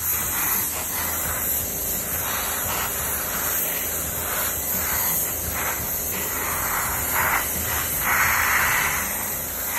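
Airbrush hissing, the spray swelling and fading in short pulses as the trigger is worked.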